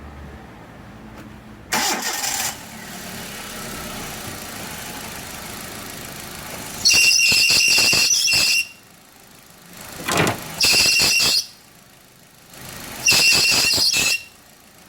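Car power steering squealing as the wheel is turned, four times, each a high shrill squeal lasting about one to two seconds, over the engine running.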